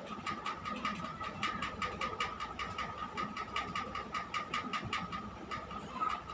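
A leaf being rubbed and twirled in a nostril to tickle out a sneeze: a quick run of dry scratching clicks, about five a second, thinning out near the middle, over a steady high hum.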